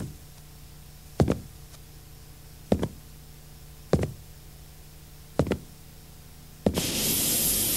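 Cartoon thuds of a string-bound man hopping across a floor: five heavy steps about one to one and a half seconds apart, some doubled. Near the end a loud, steady welding-torch hiss starts abruptly.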